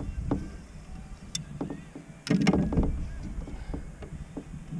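Scattered clicks and knocks of a landing net and fishing gear being handled in a canoe, the frame and rod tapping the hull, over a low rumble. A louder cluster of knocks comes about two and a half seconds in.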